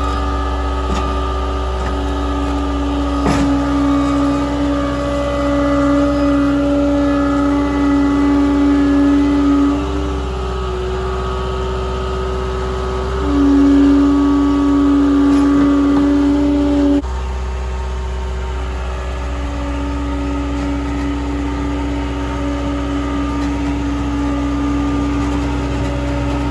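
Heavy equipment's engine running steadily, with a strong droning tone over it that swells and drops away several times.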